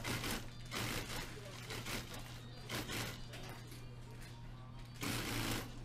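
Short rustling, scraping bursts of polyurethane sofa-cover fabric being handled and fed through an industrial sewing machine, about five of them, over a steady low hum.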